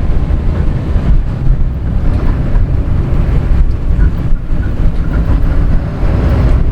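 Game-drive vehicle driving, a steady low rumble with wind buffeting the microphone.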